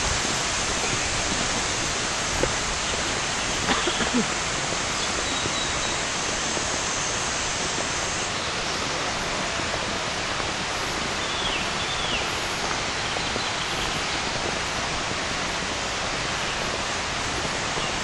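Steady, even rush of flowing water. A thin high steady tone sits over it and stops about eight seconds in, and a few short high chirps come through.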